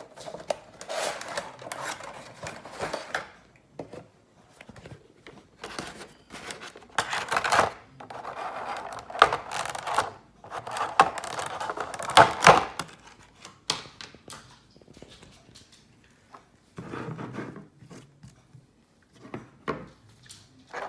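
Cardboard and plastic packaging of a Funko Pop vinyl figure being handled and opened: irregular clicks, taps, scrapes and crinkling as the box is worked open and the figure is drawn out of its plastic insert.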